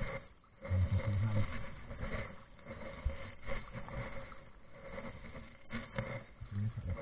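Kayak being paddled on calm water: paddle strokes with scattered knocks and drips, and short low rumbles.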